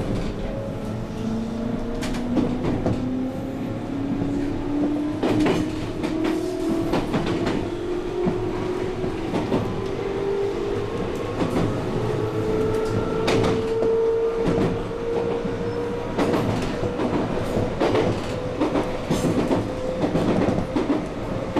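JR 221 series electric train picking up speed, its traction motor whine rising slowly and steadily in pitch, with wheels clicking over rail joints, heard from inside the front car.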